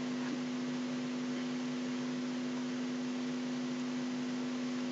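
Steady electrical hum with a constant hiss: one held tone with fainter tones above it, the recording's background noise between spoken passages.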